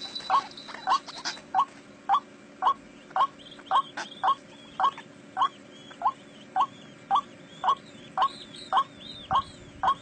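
White-breasted waterhen calling: a short rising note repeated steadily, nearly two a second. Fainter, higher chirping joins above it from about three seconds in.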